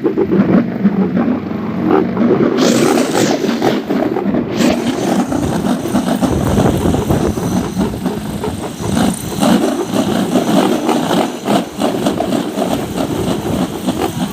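Wind-driven wooden propeller toy (enter-enteran, or nandel) spinning in strong wind and whirring without a break, with a louder hiss between about three and five seconds in.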